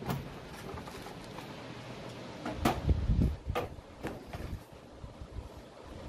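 Knocks and clunks of a metal rack-mount karaoke processor being handled and set down on top of a power amplifier, the loudest a dull thump about three seconds in.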